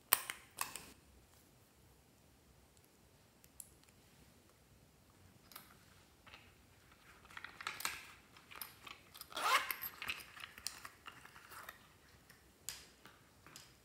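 Sharp clicks as a rhinestone lipstick case is handled and opened, then a few seconds of crinkling, crunchy rubbing from a foam squishy toy being squeezed and handled, with a few more light clicks near the end.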